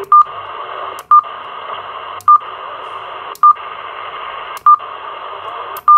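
Anytone Ares II CB transceiver's speaker hissing with receiver static as its channel selector is stepped up one channel at a time. Each step gives a click, a brief mute and a short beep, about once a second, six times.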